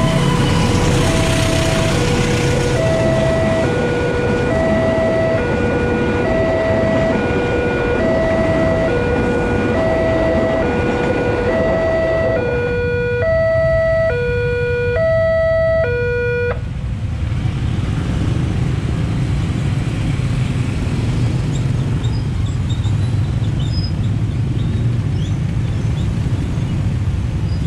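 Railway level-crossing alarm sounding an alternating high-low two-tone signal, about one cycle a second, over the heavy rumble of a passing train. The alarm cuts off about sixteen seconds in, and a low rumble of vehicle engines carries on as the traffic moves over the crossing.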